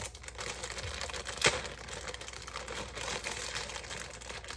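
Handling noise at a kitchen counter: a run of small clicks and rustles, with one sharp knock about a second and a half in.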